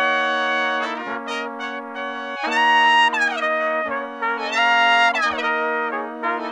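Background music: a slow melody of long held notes, several sliding down in pitch, over a steady low drone.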